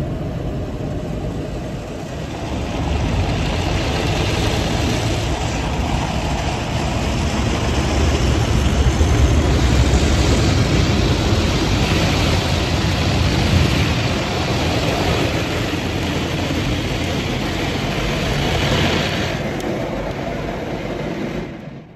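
Automatic car wash machinery running over the car, a loud steady rush heard from inside the cabin. It builds over the first few seconds and stops abruptly near the end.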